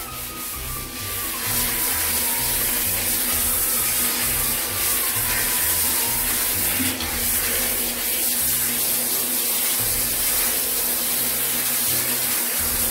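Handheld shower head running, a steady hiss of water spraying onto a dog's wet coat. Comic background music plays underneath.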